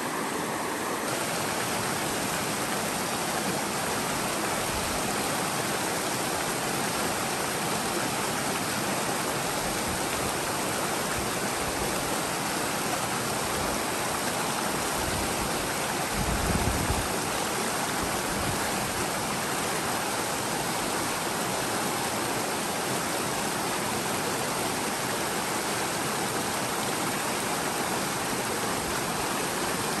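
Mountain river running steadily, a continuous even rush of water. About halfway through, a brief low rumble swells and passes.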